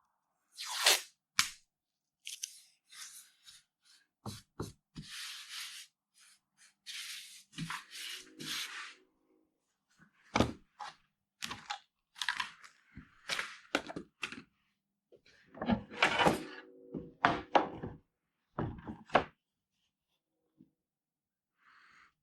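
Irregular knocks, clicks and short scrapes as tools and wood are handled, with gaps between them; no saw motor running.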